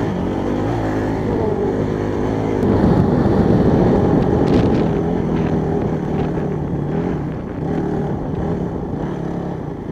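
Honda CRF trail bike's single-cylinder engine running under throttle while riding a rocky gravel track. It grows louder about three seconds in and eases off again, with a few short knocks near the middle.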